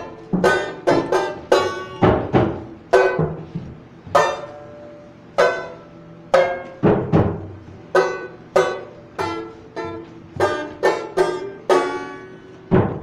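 Banjo and acoustic guitar played live, sharp strummed chords each ringing out and fading. The rhythm is uneven and stop-start, thinning to a few lone chords about a third of the way in before picking up again.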